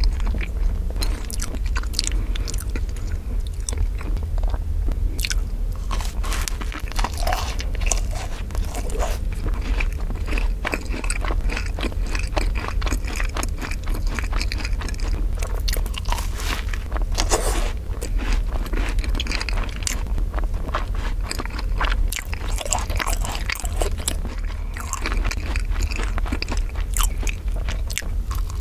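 Close-miked eating sounds: chewing of soft strawberry crepe cake with whipped cream, and bites into a macaron whose thin shell crunches, with many small crisp clicks and crackles throughout. A steady low hum runs underneath.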